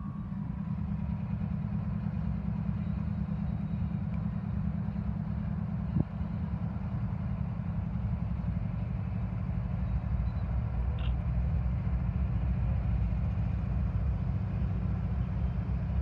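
Steady low engine rumble heard from inside a car, with one sharp click about six seconds in.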